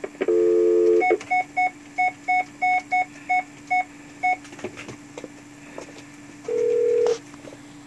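Telephone speakerphone: a steady dial tone for about a second, then about ten quick touch-tone key beeps as a phone number is dialed, then one longer tone about six and a half seconds in as the call goes out.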